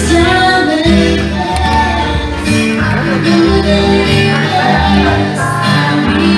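Background music: a guitar-led song with a bass line and a singing voice.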